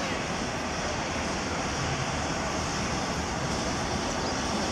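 Train approaching the station: a steady rumbling noise with no distinct beat.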